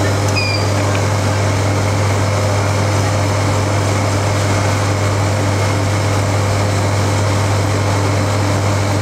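Soft-serve ice cream machine running steadily while soft-serve is dispensed into a cone: a loud, even motor hum with a deep low drone.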